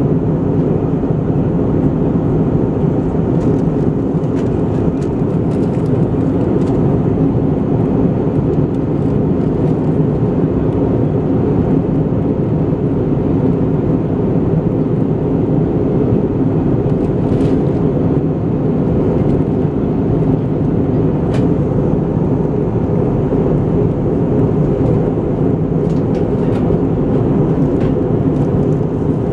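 Steady in-flight cabin noise of an Airbus A320-214 airliner, heard from a window seat: the low, even rush of airflow and engine drone, with a few faint ticks.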